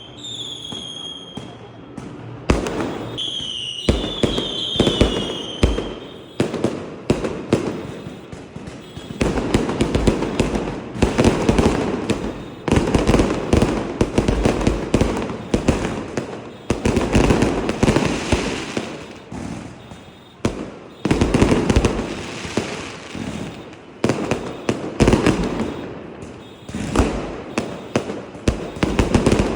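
Fireworks and firecrackers going off in dense, rapid volleys of bangs and crackling that swell and ease in waves. Whistling tones sound in the first few seconds.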